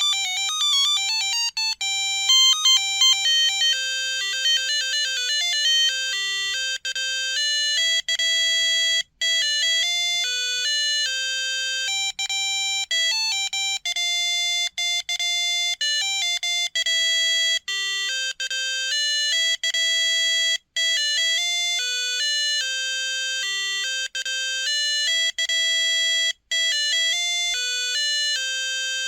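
Monophonic melody ringtone of a Samsung Anycall SCH-X140 mobile phone, a bright buzzy tune played one note at a time, with a few brief breaks between phrases.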